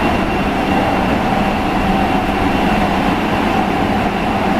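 Interior noise of a Nagoya Municipal Subway 6000 series car: a loud, steady rumble with a constant whine held at one pitch throughout.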